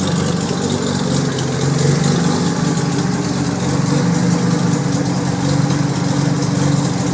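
Freshly rebuilt 1993 Mazda RX-7's twin-turbo 13B rotary engine idling steadily.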